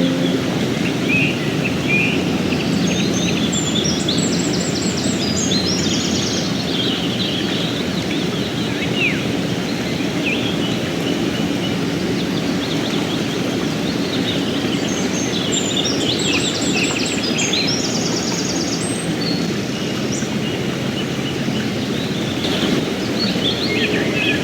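Mountain stream running steadily, with small birds singing chirps and rapid trills in bouts, a couple of seconds in, again past the middle, and near the end.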